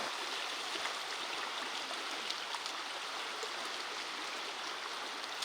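River water flowing steadily over rocks: an even, unbroken rush.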